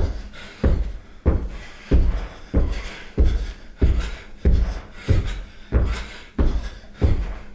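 A steady series of heavy thumps, about three every two seconds, each with a short ringing decay.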